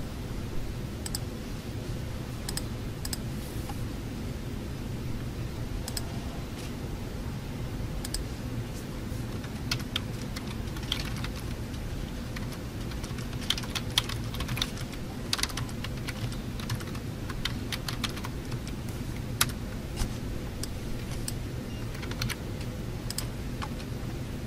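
Someone typing on a computer keyboard: scattered, irregular key clicks in short runs, over a steady low background hum.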